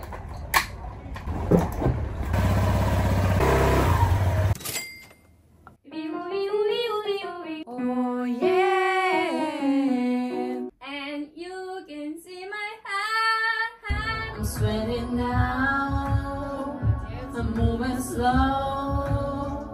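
For about the first four seconds, motor scooter engine and road noise. After a short pause a woman sings a melody alone, and about eight seconds later an accompaniment comes in under her voice.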